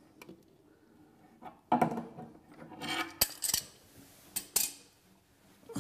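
Metal hand tools clinking and scraping on a tap connector and pipe fittings, with several sharp knocks and one very sharp click. It is the clatter of grips and a spanner working and being put down.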